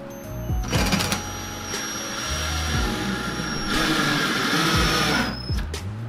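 Cordless drill running into the wall for about four and a half seconds, starting about a second in. Its whine sags slightly just before it stops. Background music plays underneath.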